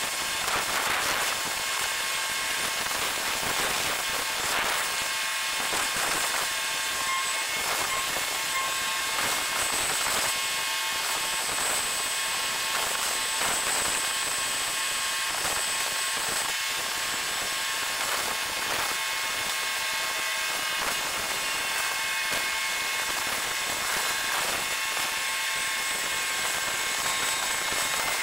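Fast-forwarded dockside ambience: a dense, steady hiss full of rapid clicks and crackles, with a few thin high whines running through it.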